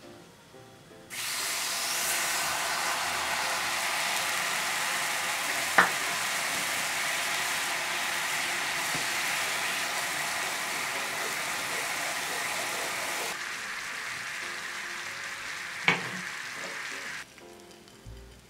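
Sugar-and-water syrup boiling hard in a small nonstick pan, a steady loud sizzling hiss that starts abruptly about a second in and cuts off abruptly near the end. Two sharp clicks sound over it, one about six seconds in and one near the end.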